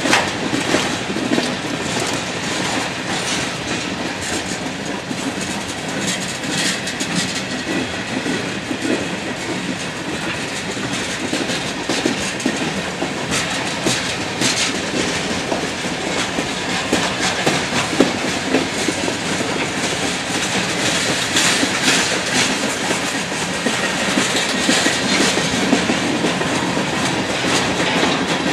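Freight train cars (boxcars, then flatcars) rolling past close by. Their steel wheels click steadily over the rail joints over a continuous rumble.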